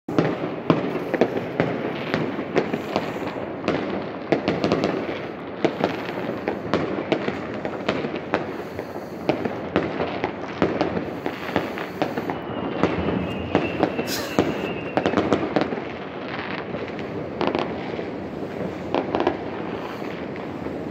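Many New Year's fireworks and firecrackers going off in the distance: a dense, continuous run of bangs and pops overlapping one another, with a thin whistle about two-thirds of the way through.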